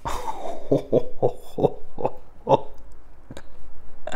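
A man laughing with delight: a falling exclamation, then a run of about six short, rhythmic laughs that stops about two and a half seconds in.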